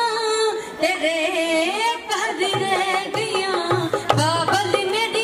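Punjabi folk singing of Teeyan songs and boliyan: a high sung melody held and bent through long notes, with a steady drum beat joining about halfway through.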